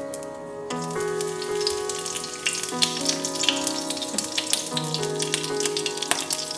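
Kaffir lime leaves dropped into a little hot oil in a pan, the oil sizzling and crackling from about a second in, with background music underneath.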